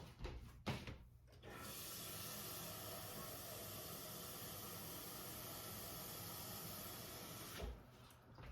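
Kitchen tap running steadily for about six seconds as water is drawn for the soup pot, starting about one and a half seconds in and shutting off near the end.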